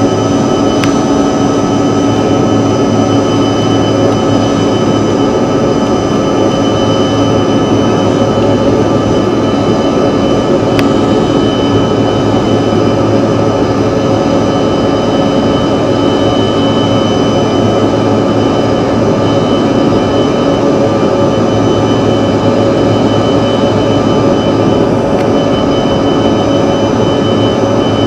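Cabin noise of a Bombardier CRJ200 in flight, heard from a window seat: the rear-mounted General Electric CF34 turbofans give a steady roar with a constant whine of several held tones, unchanging throughout.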